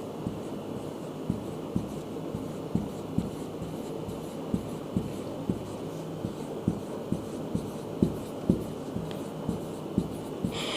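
Hand-drawing a diagram: a writing tool making soft irregular strokes and taps, about two a second, over a faint steady hum.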